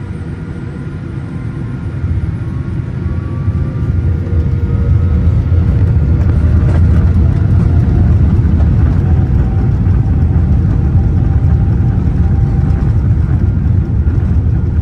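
Boeing 787 jet engines spooling up to takeoff thrust, heard from inside the cabin over the wing, with the rumble of the airliner rolling down the runway. The deep rumble and a faint whine build over the first few seconds, then hold steady and loud as the jet accelerates.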